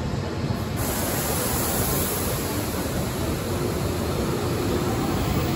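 N700S Shinkansen bullet train running alongside the platform, a steady rushing noise of the passing cars, with a high hiss that joins about a second in.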